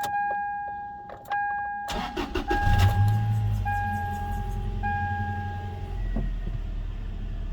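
Toyota Tacoma's 2.7-litre four-cylinder engine cranks and catches about two seconds in, then settles into a steady idle. It now runs smoothly, without the shaking, after a failed ignition coil was replaced to cure a cylinder misfire. A dashboard warning chime beeps in a steady series until about six seconds in.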